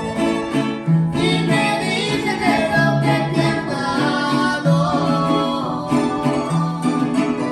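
Music: guitar with a repeating bass pattern under a gliding melody line.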